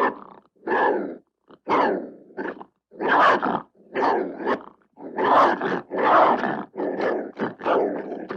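Wolves growling and snarling in a rapid series of short, rough calls, about one to two a second, with no drawn-out howls.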